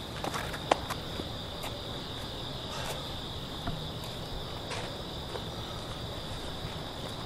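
Crickets chirring steadily, with a few scattered light clicks, the sharpest one under a second in.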